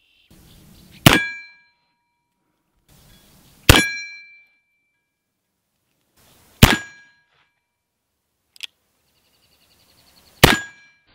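A small hanging steel plate target struck four times by .44 lead balls from a cap-and-ball revolver. Each hit is a sharp clang that rings on briefly in a few high tones, the hits coming a few seconds apart.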